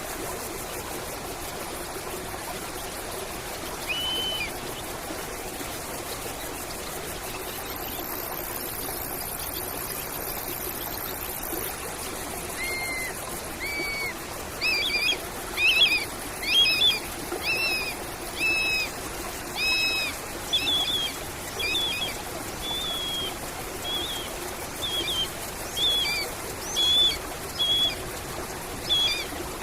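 Nature soundscape of steadily running water with birdsong. About a third of the way in, a bird starts repeating short chirping notes, roughly one a second, louder than the water.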